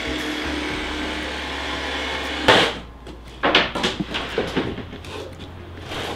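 Cordless handheld power tool running steadily as it shaves a wooden surfboard, cut off by a sudden loud burst about two and a half seconds in. After that come a few scattered wooden knocks and clatters.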